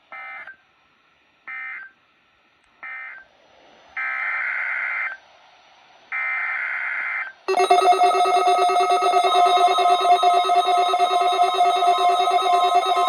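NOAA Weather Radio SAME digital data bursts: three short screeching bursts about a second apart, which mark the end of the previous message, then two longer bursts of a new alert header. About seven and a half seconds in, a loud steady alert tone of several pitches starts and holds.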